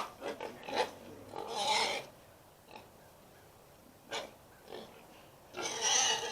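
Pigs calling in several short bursts, the loudest near the end, as they are given food.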